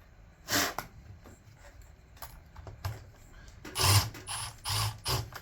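A hand tool working an M4 screw on a Stihl MS 200T chainsaw: a series of short, sharp metallic clicks and scrapes, most of them bunched near the end. The screw is stripped.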